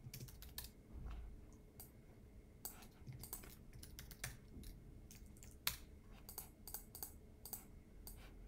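Faint typing on a computer keyboard with scattered clicks, irregular and quick, with one sharper click about two-thirds of the way through.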